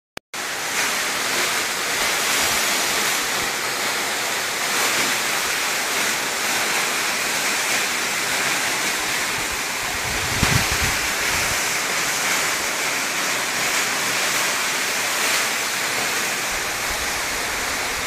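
Afurca waterfall pouring down a cliff: a steady rushing hiss of falling water and spray, with a brief low thump about halfway through.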